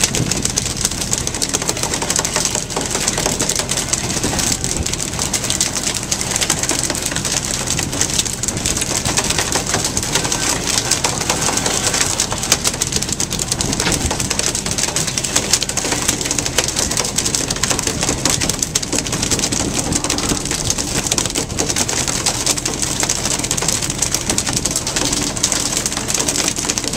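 Fishing boat under way on open sea: a steady low engine drone beneath a dense, even rush of sea wash and spray, with rapid fine clicking and slapping throughout.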